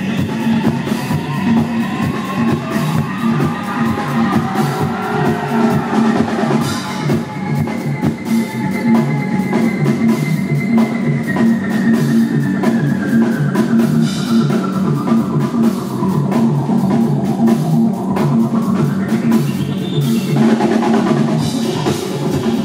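Background music: a track with a steady drum beat and slowly gliding melodic lines, with a rising sweep a few seconds before the end.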